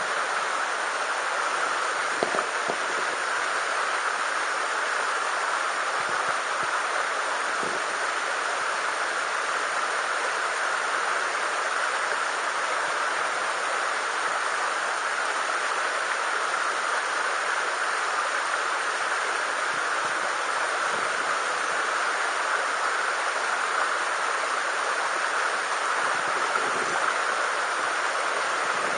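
Mountain stream water rushing steadily over rocks, an even unbroken sound of flowing water.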